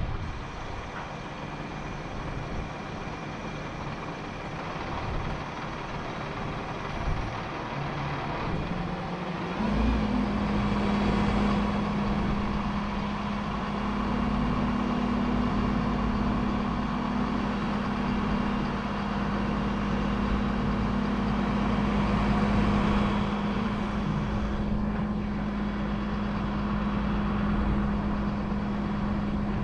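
Crane truck's engine running steadily, then speeding up to a louder, higher steady hum about ten seconds in, as it would when the crane is worked.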